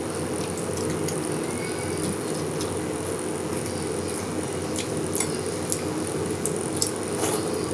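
Close-up eating sounds: scattered small clicks of chewing and mouth sounds over a steady low hum, the clicks coming more often in the second half.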